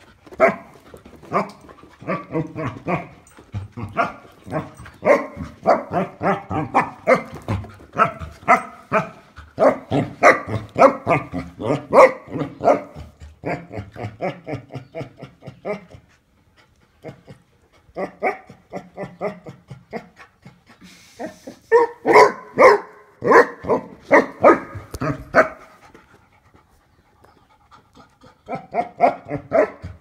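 Basset hound barking and huffing in play at a parrot: long runs of rapid, short barks several a second, broken by two pauses.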